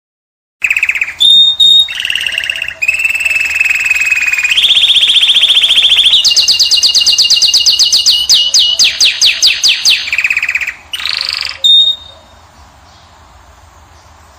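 A caged finch singing a run of rolling trills, each held on one pitch before jumping to a higher one, then a string of quick repeated sweeping notes. The song stops about twelve seconds in, leaving only faint background.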